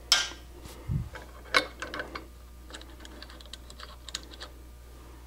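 Small metal lathe banjo parts being handled. A sharp clack comes first, then a dull thud about a second in and another clack, followed by a run of light ticks and clicks as the keeper plate and washers are picked up and set down.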